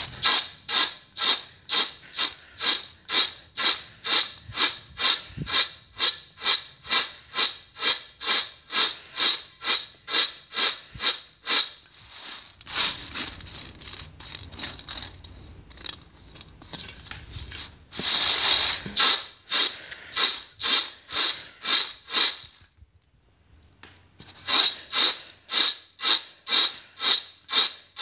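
Sand-roasted black chickpeas shaken back and forth in a steel tray, the dry grains rattling against the metal in an even rhythm of about two or three strokes a second, to sift out soil, grit and husks. The rattling breaks off a few times, once for about a second and a half past the middle, then picks up again.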